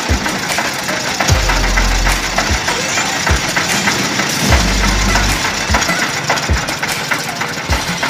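Motorised sugarcane juice crusher running as cane stalks are fed through its rollers, a steady mechanical clatter with low thuds about once a second.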